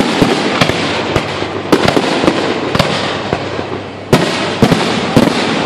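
Aerial firework shells bursting in quick succession: a dozen or more sharp bangs over continuous crackling, easing briefly before a fresh loud bang about four seconds in.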